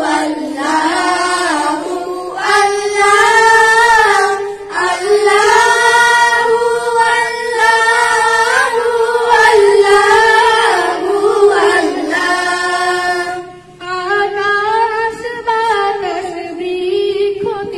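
Schoolchildren singing a Bengali Islamic gojol (ghazal) without instruments, a girl's voice leading into a microphone with the group joining in, with a short break about 13 seconds in.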